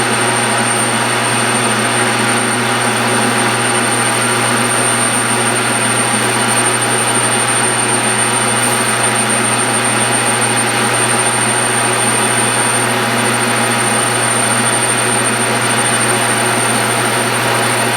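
Metal lathe running steadily while turning a hub on an aluminum flywheel, with a constant motor and gear hum and a thin high whine.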